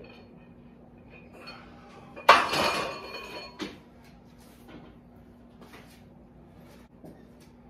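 Loaded barbell racked onto the steel hooks of a power rack: a loud metal clank that rings on briefly, about two seconds in, followed a second later by a smaller knock.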